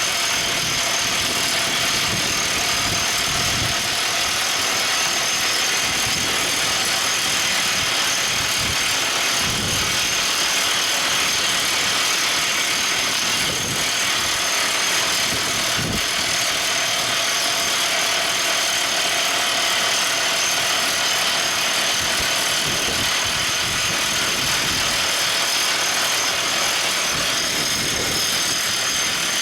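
Everdigm ECD45E top hammer drill rig running: steady, loud machine noise with a constant whine.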